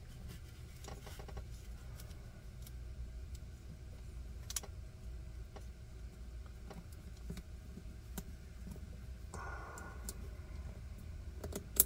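Small metallic clicks and taps of a Hogue Deka folding knife's blade, pivot and lock being worked with a needle tool while trying to seat the pivot, with a sharper click shortly before the end as it drops into place.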